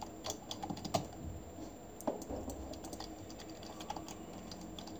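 Faint, irregular clicks of keys on a computer keyboard being typed.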